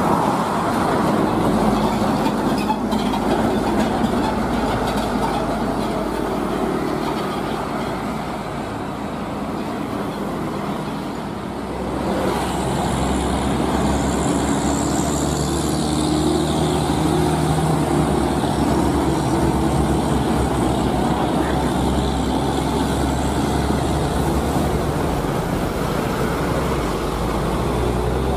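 Heavy diesel container trucks driving past, engine drone and tyre noise on asphalt: first an Isuzu tractor unit, then, after a change about twelve seconds in, a UD (Nissan Diesel) truck whose engine note rises slightly as it pulls by.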